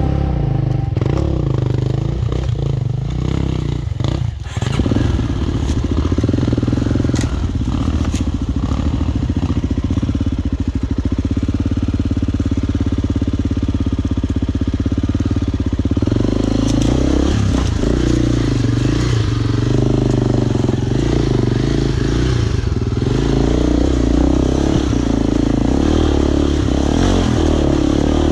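Enduro dirt bike engine running and revving under load, with a few knocks and clatter. The engine note holds fairly steady through the middle, then rises and falls in the second half.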